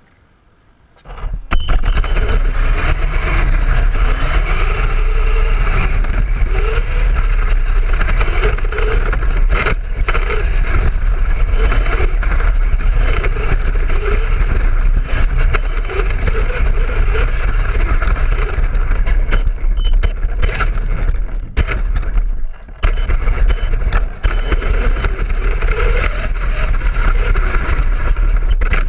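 Traxxas E-Revo VXL RC monster truck driving over a rough dirt road, heard from a camera riding on it: loud, continuous rumble and rattle, with a faint motor whine rising and falling as the speed changes. It starts suddenly about a second in and dips briefly twice near the end.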